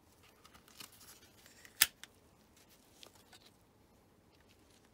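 Rolleiflex 2.8F twin-lens reflex camera being handled: light clicks, then one sharp, loud mechanical click a little under two seconds in, followed by a few smaller clicks about a second later.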